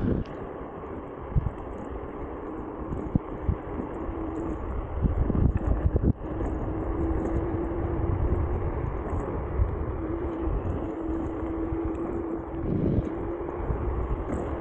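Nami Klima electric scooter riding along a paved path: wind buffeting the microphone over a steady low rumble, with a few short knocks in the first half. A steady hum from the scooter's motors comes in about six seconds in and fades near the end.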